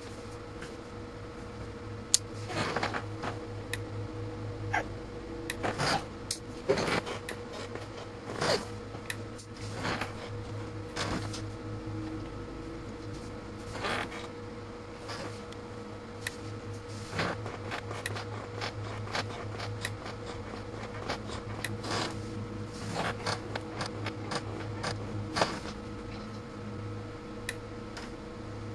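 A homemade 2 kV surge tester firing transients into a multimeter: a string of sharp electrical clicks and snaps at irregular intervals, roughly one a second, some louder than others, over a steady electrical hum.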